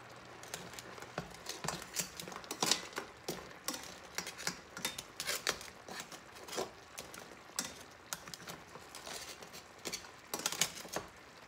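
Metal tongs clicking and tapping irregularly against a stainless steel pan and hard crab shells as whole crabs are moved about in simmering coconut milk, with a light crackle from the simmering sauce.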